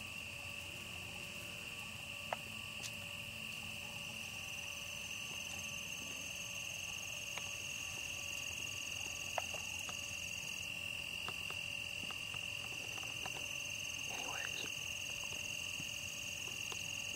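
Steady chorus of insects, crickets and the like, trilling in an unbroken high tone, with two faint ticks about two seconds in and near the middle.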